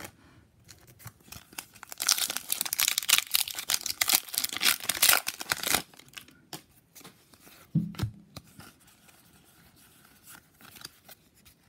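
Foil wrapper of a Pokémon trading card booster pack being torn open and crinkled for about four seconds, starting about two seconds in, followed by softer clicks of the cards being handled.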